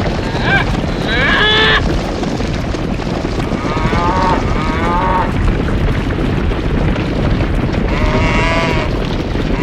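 Stampede sound effect: a dense, steady rumble of many cattle hooves, with cattle calling over it about four times.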